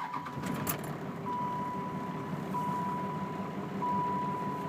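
12-valve Cummins 5.9 L inline-six diesel in a 1995 Dodge pickup running at idle just after being started, with a rough idle that the owner puts down to a faulty fuel overflow valve. A steady electronic warning chime from the cab sounds in three long beeps alongside it.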